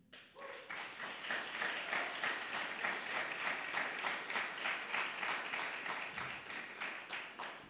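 Audience applauding: the clapping swells up right away, holds steady, and fades out near the end.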